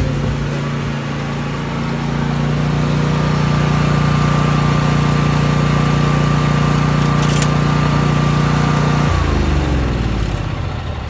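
Lawn mower engine running steadily, then shut off about nine seconds in, its pitch falling as it winds down. A single sharp click sounds shortly before the shut-off.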